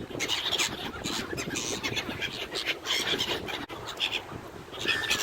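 Mallards being fed on the water: a run of short, irregular splashing and scuffling noises.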